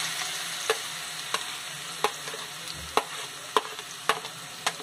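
Chopped onions sizzling in hot oil in a steel kadai, a steady hiss, while a steel spoon clicks sharply against the plate about seven times as the onions are scraped off into the pan.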